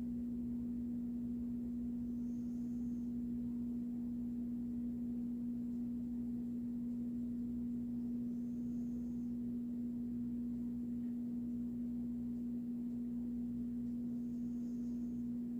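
A steady low hum: one constant tone that does not change.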